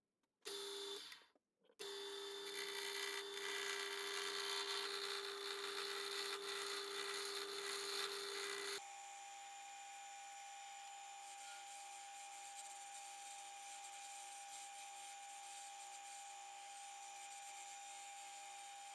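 Wood lathe running with a steady motor whine while a wooden handle blank is turned on it, the cutting loud and rough. About nine seconds in the sound changes abruptly to quieter, steadier running with a higher whine.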